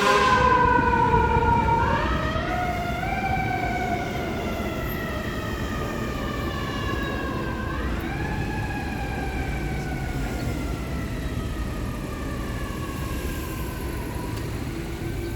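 Fire engine siren wailing. Twice the pitch climbs quickly and then slides slowly down over several seconds, and it grows fainter over the first few seconds. A low engine and road rumble runs underneath.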